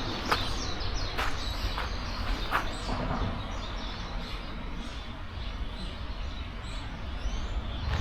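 Footsteps outdoors, several in the first few seconds then stopping, with small bird chirps and a steady low rumble of ambient noise.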